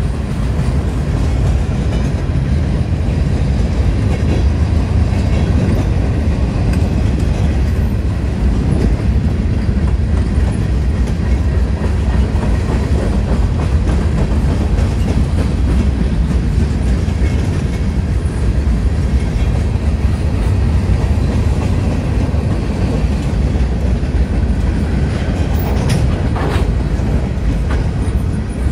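Freight train's boxcars rolling past, a steady low rumble of steel wheels on rail, with a brief sharper noise near the end.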